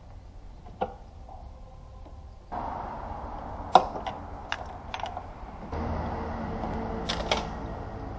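Hand tools clicking and knocking against metal engine parts while working on a car engine that is not running: scattered sharp taps and clinks, the loudest about four seconds in and two close together near seven seconds. Under them a steady workshop hum gets louder in a step about two and a half seconds in, and again near six seconds.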